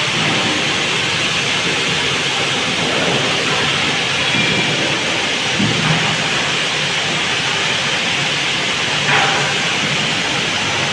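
Steady din of sawmill machinery running, with a knock near the middle and another near the end.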